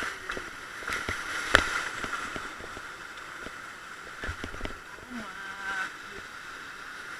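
Rushing river water heard from a raft, a steady rush with a few sharp knocks, the loudest about a second and a half in. Faint voices come in briefly past the middle.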